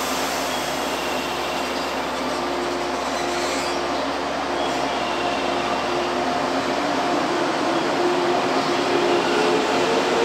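115 series 300-subseries electric multiple unit pulling away from a platform: its motors and wheels run steadily, getting louder as it picks up speed, with a hum that rises in pitch over the last few seconds.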